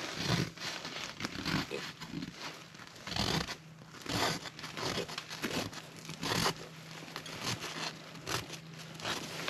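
A fingertip scraping through frost on a tent's flexible plastic window, writing letters, in a run of short irregular scratchy strokes with crinkling of the plastic. A faint steady low hum sits underneath from about three seconds in.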